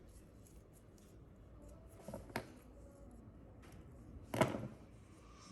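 Quiet handling sounds: two short sharp clicks a little after two seconds in, then a louder knock about four and a half seconds in.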